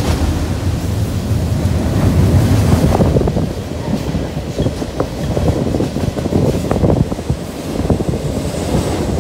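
Freight train rolling past with a diesel locomotive mid-train, its engine a low rumble that is loudest in the first three seconds. The car wheels click sharply now and then over the rails.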